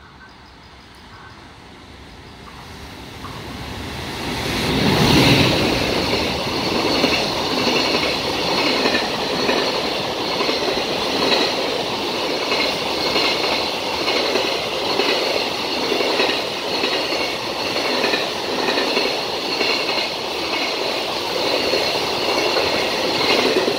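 JR Freight container train passing at speed: its EF510 electric locomotive comes up and goes by loudest about five seconds in. A long string of container wagons follows, clattering rhythmically over the rails with a steady high ring from the wheels.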